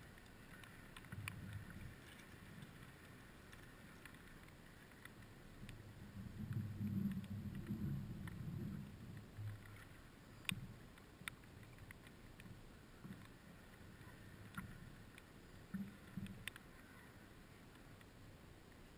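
Water sloshing and knocking low against a stand-up paddleboard's hull, loudest about six to nine seconds in, with a few sharp clicks.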